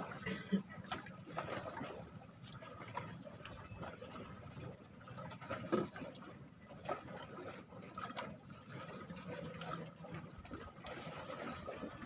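Sea water lapping against a small boat's hull in irregular small splashes and knocks.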